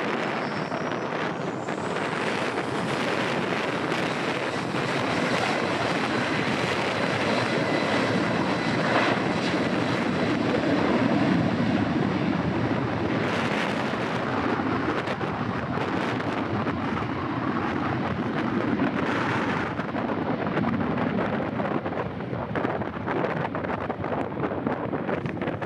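Jet engines of a Boeing 737-800 (CFM56-7B turbofans) at take-off thrust during the take-off roll, a steady loud rush. A high fan whine rises in the first couple of seconds and then holds. Wind buffets the microphone.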